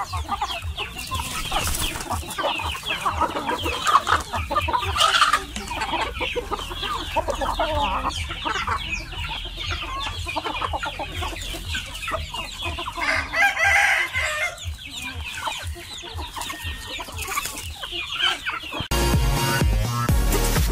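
A flock of chickens clucking and calling while they feed, with a rooster crowing about two-thirds of the way through. Background music cuts in near the end.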